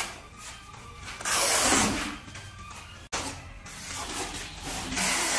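Notched steel trowel scraping through cement tile adhesive on the back of a large floor tile: a long scrape about a second in and another near the end, over background music.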